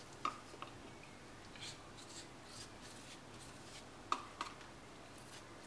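Pastry brush spreading warm, liquid chocolate cake glaze over a cake, with soft, quiet brushing strokes. A few light clicks come from the brush against the plastic glaze tray: two near the start and two more about four seconds in.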